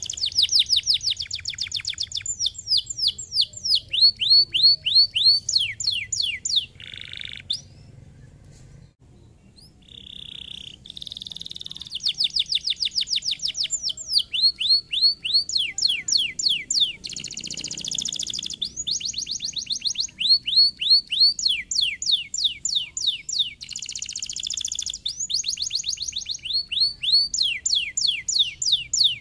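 Domestic canary singing: fast trills of repeated falling whistled notes in changing phrases, with a brief lull about eight seconds in.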